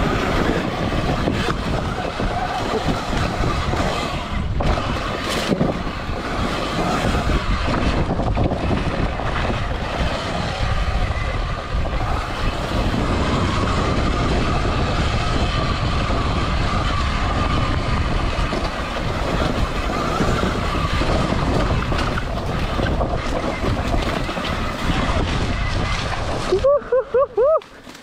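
Modified Sur Ron X electric dirt bike at speed on a dirt trail. A steady motor and drivetrain whine runs under heavy wind rush on the microphone, with scattered knocks from the bike over bumps. Near the end the rush drops away sharply.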